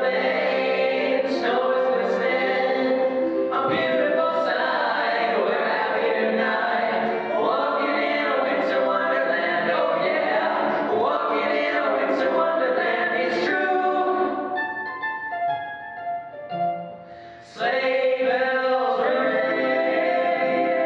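A small vocal group singing a jazzy Christmas arrangement, several voices together with music behind them. About fourteen seconds in it thins to a few soft held notes for about three seconds, then the full ensemble sound returns.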